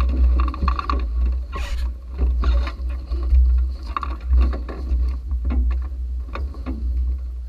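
Clothing rustling, scraping and irregular knocks as a person leans into a Caterham's cockpit and handles the steering wheel close to the in-car camera, over a continuous low rumble.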